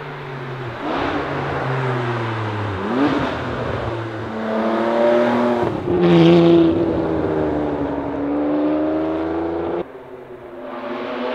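Ferrari 599 GTB Fiorano's naturally aspirated 6.0-litre V12 accelerating hard through the gears, its pitch climbing and then breaking at each shift. Near the end the sound drops off suddenly, then climbs again.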